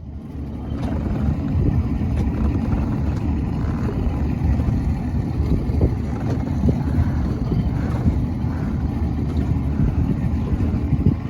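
Motorboat engine running steadily, with wind rumbling on the microphone.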